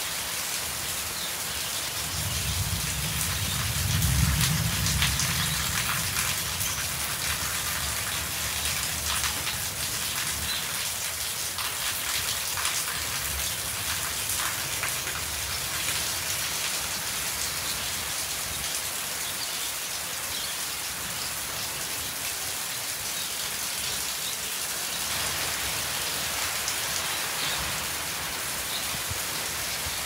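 Steady rain falling on a yard of concrete and puddles, with fine drip ticks through it. A low rumble swells about two seconds in, peaks around four seconds and fades by about six.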